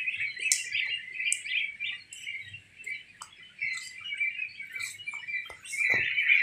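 A flock of 13-day-old goslings peeping, many high calls overlapping. It thins out for a while in the middle and swells again near the end, with a few sharp clicks and a knock just before the end.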